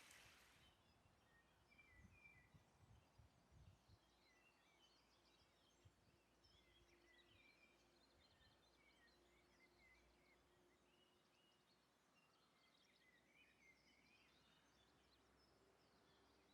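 Faint birdsong: scattered short chirps over quiet background, with a few soft low thuds in the first few seconds.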